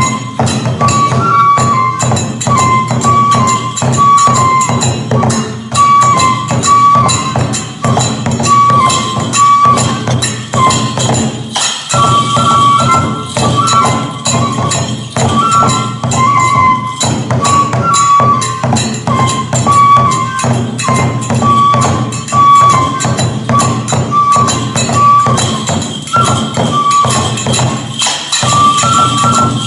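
Kagura accompaniment: a high transverse flute repeating a short melody over fast, steady drum beats and ringing hand cymbals.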